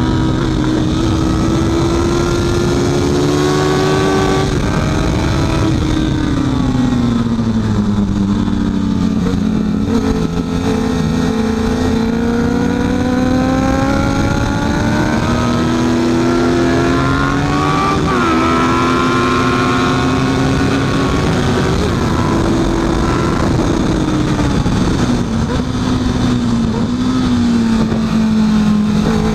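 A Honda CB650F's inline-four engine running hard on a race track. Its pitch sags for several seconds as the bike slows, then climbs again. There is a brief jump in pitch about eighteen seconds in and another dip later on.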